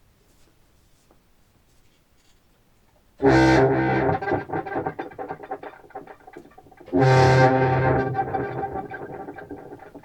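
Contrabass clarinet played through a granular delay pedal and heard over studio speakers. Two loud sustained notes start about a third of the way in and again about two-thirds in, each breaking into stuttering, chopped repeats as it fades.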